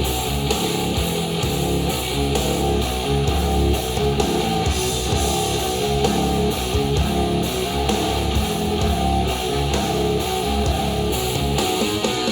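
Instrumental music with strummed guitar, played through a powered Edifier bookshelf speaker and picked up by microphones in the room.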